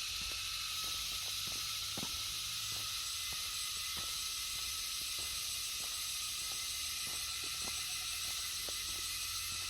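Steady, high-pitched chorus of insects, with soft footsteps on a road about twice a second underneath.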